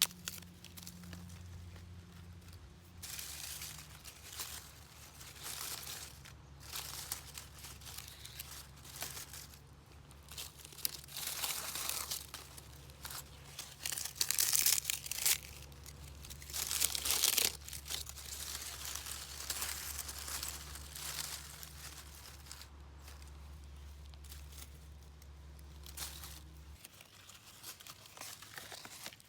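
Irregular crinkling and tearing of a crinkly material being handled, in uneven rustling spells that are loudest around the middle.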